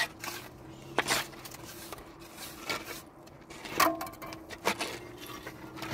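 Scattered sharp clinks and knocks of hard objects, about six of them at irregular intervals roughly a second apart, over a faint steady hum.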